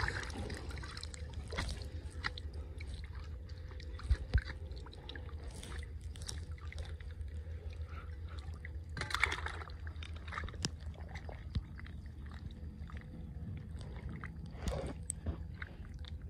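Shallow muddy water sloshing as an iron crowbar is worked into a submerged bank to dig out a crab burrow, with two sharp knocks about four seconds in and a splash about nine seconds in.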